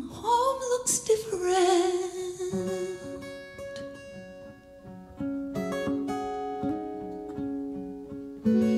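Live jazz ensemble playing: a held melodic note with a wavering pitch in the first two seconds, then a guitar picking single notes and chords.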